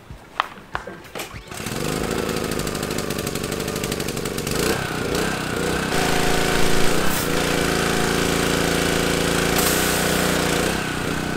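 Subaru engine of a gas pressure washer starting after a few clicks, catching about a second and a half in and then running steadily. About four and a half seconds in its note changes as the spray wand is put to use.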